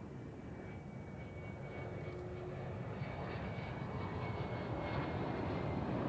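Jet airliner's engines, a dense rumble with a faint steady high whine, growing steadily louder as the aircraft approaches.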